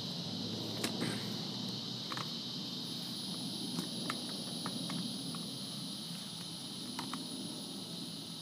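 Steady outdoor insect chorus, a continuous high buzzing, with a scattering of short light clicks and taps.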